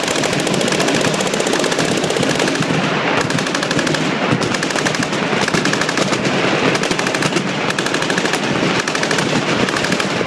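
Many machine guns firing fully automatic at once, a continuous, overlapping barrage of rapid shots with no pause.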